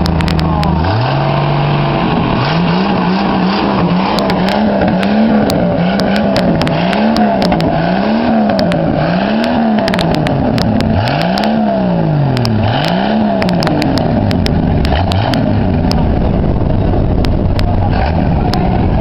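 A car engine with a loud exhaust is revved over and over: it idles, rises to a fast idle about a second in, then blips up and down roughly every second and a half before settling back to idle near the end. The exhaust note is a deep snoring sound.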